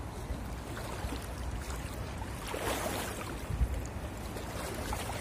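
Low rumble of wind buffeting the microphone over the steady wash of a shallow, rocky river, with a short louder rush of water noise a little past the middle.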